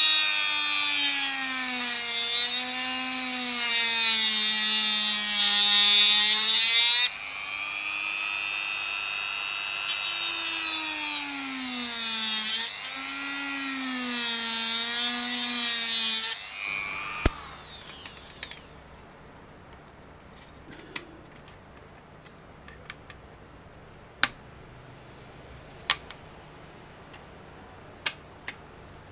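Dremel rotary tool with a cutting disc cutting through the plastic DJI FPV motor arm, its whine dipping and rising in pitch as the disc bites. About 16 s in it is switched off and winds down, followed by scattered sharp clicks as the cut arm is worked with pliers.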